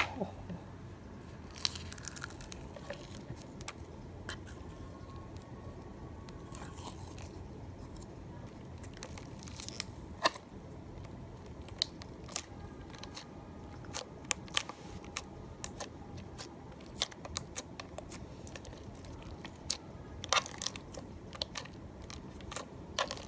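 Creamy slime with foam beads being squished, poked and stretched by hand, giving quiet, scattered crackles and small pops.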